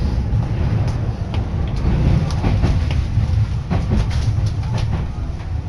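Tokyu Toyoko Line commuter train running, heard from inside the carriage: a steady low rumble with scattered clicks of the wheels over the rails.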